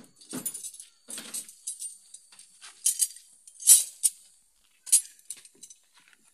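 Loose metal car parts and tools clinking and jangling as they are handled, a few sharp clinks, the loudest about halfway through.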